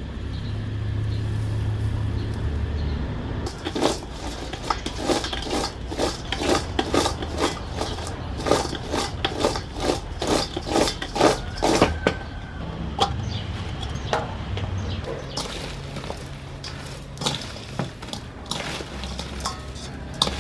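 Rapid clattering of a metal utensil against cookware, about three knocks a second for several seconds, then sparser knocks. A low steady hum runs underneath at times.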